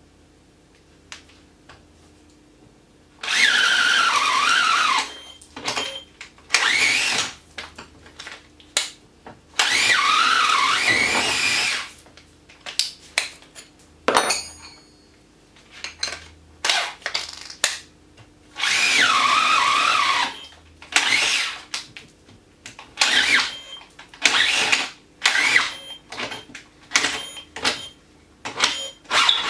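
Festool TI 15 cordless drill running in repeated trigger bursts: three longer runs of a couple of seconds each, their motor whine wavering in pitch, between many short blips. Near the end it is drilling into a timber post.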